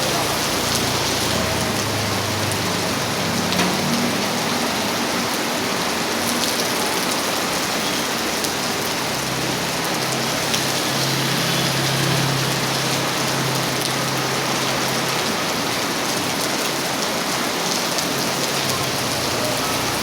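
Heavy rain falling steadily, a dense, even hiss of drops on surfaces. A low hum swells and fades between about nine and fifteen seconds in.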